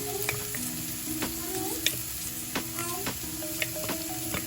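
Blended carrot, garlic and spring onion sizzling in oil in a pan, with a utensil clicking and scraping against the pan over and over as it is stirred.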